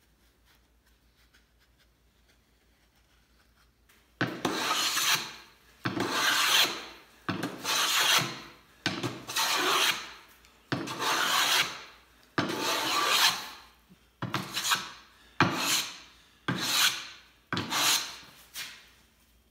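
A wooden-bodied hand plane taking about ten full-length strokes along a white oak strip, each a loud shearing rasp that starts sharply and tails off. The first four seconds are near quiet.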